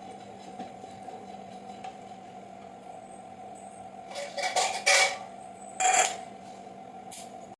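Metal kitchen utensils and pots clattering and clinking in two loud bursts, the first a little past halfway and the second about a second later, over a steady background hum.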